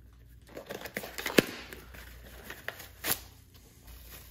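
A small cardboard box opened and a bubble-wrapped part unwrapped: plastic crinkling with scattered sharp clicks, the loudest about a second and a half in and another about three seconds in.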